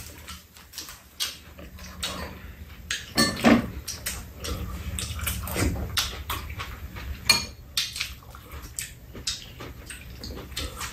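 Close-up eating sounds: chewing, with spoons clicking against bowls and a pan many times at irregular moments.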